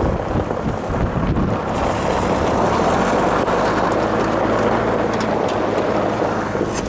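Towing vehicle's engine running steadily while tyres roll over loose gravel, pulling a wrecked car on a tow rope, with some wind on the microphone. The gravel noise swells in the middle of the pull.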